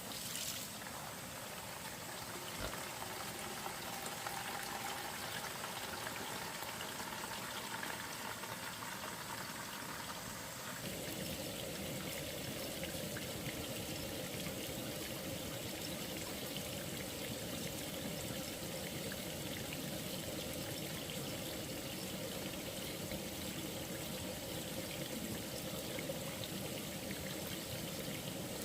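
Steady running or pouring water, its sound changing abruptly about eleven seconds in.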